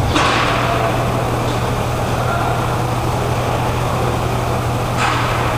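Steady low hum filling an indoor roller hockey rink, with a sharp clack of stick-and-ball play just after the start and another about five seconds in.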